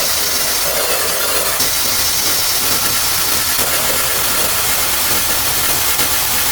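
Loud, steady hissing noise.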